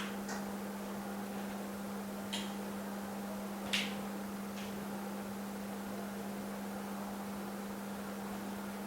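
Steady low hum from an LCD separator machine with a built-in vacuum pump running, with four light clicks in the first few seconds.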